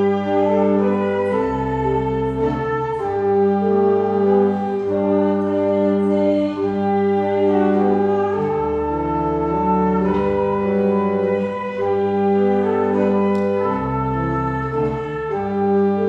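Church organ playing slow, sustained chords over held bass notes that change every few seconds.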